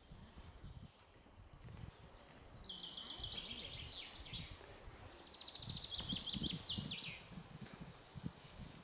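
A songbird singing two rapid trilled phrases, each stepping down in pitch to a lower close, over an irregular low rumble.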